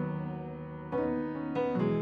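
Background piano music: notes or chords struck about once a second, each fading away before the next.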